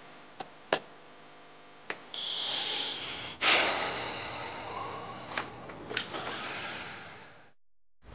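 A man draws a long breath and lets out a slow sigh that fades away over several seconds, after a few sharp clicks.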